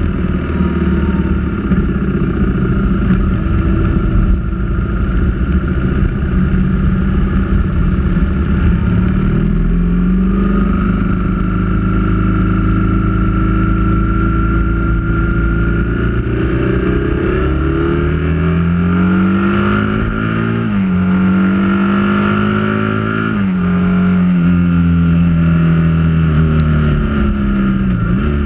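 Engine of a road vehicle pulling up a mountain pass, over steady wind and tyre rush. Its pitch holds for about ten seconds, then rises, and drops sharply three times in the second half at gear changes.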